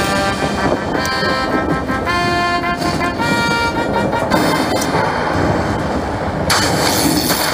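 Lightning Dollar Link slot machine's electronic win sounds: a run of bright synthesized chime notes, then a noisy rumbling crackle from the machine's lightning effect that grows louder about six and a half seconds in, as the win is announced.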